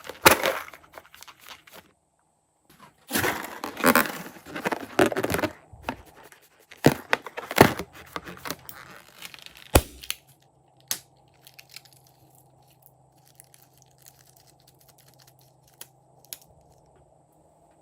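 Sticky crackling and tearing sounds of slime being squeezed, stretched and pulled apart by hand, in bunches of clicks during the first ten seconds, then only a faint low hum.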